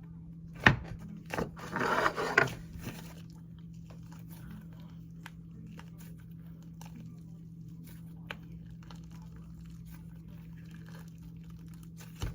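Clay slime being mixed and kneaded by hand, making sticky clicks and crackling pops that are busiest in the first two and a half seconds, then thin out to sparse small clicks. A steady low hum runs underneath.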